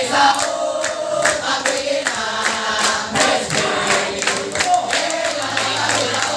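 A crowd of teenage boys chanting a yel-yel (group cheer) in unison, with hand-clapping throughout.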